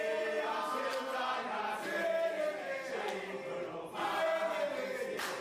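A group of men singing a chant-like song together, several voices at once.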